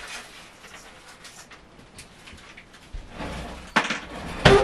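Things being moved and set down by hand while tidying: faint rustling and handling noises, a scuffing stretch about three seconds in, then two knocks near the end, the second the loudest.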